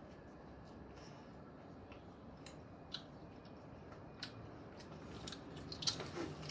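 A child chewing food, with soft, scattered mouth clicks and smacks over a faint steady room hum, a little busier near the end.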